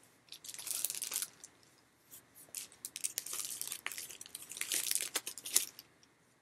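Plastic packaging of a comic book grab bag being torn open and handled: a run of irregular crackling, rustling bursts and small clicks.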